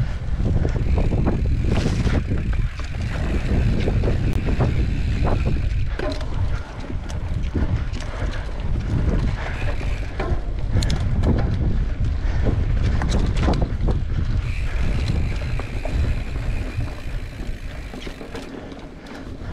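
Wind buffeting the microphone while riding a mountain bike on a dirt trail, with frequent short rattles and knocks from the bike over rough ground.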